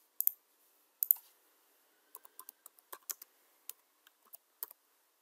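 A couple of sharp clicks in the first second or so, then typing on a computer keyboard: single keystrokes at an uneven pace from about two seconds in.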